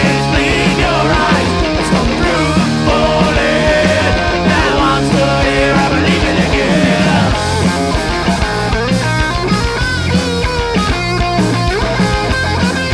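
Live punk rock band playing a passage without words: guitar over bass notes and drums.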